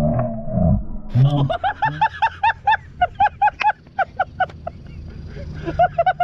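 A person laughing hard in a long string of short, high-pitched bursts, about four a second. The laughter breaks off briefly in the second half and picks up again near the end.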